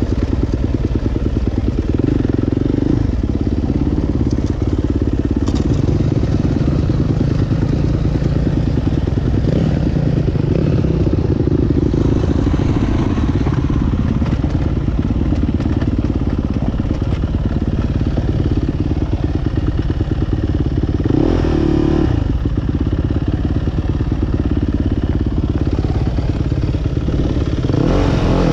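Dirt bike engine running steadily as the bike crawls along a rocky trail, revving up briefly twice: about two-thirds of the way through and again near the end.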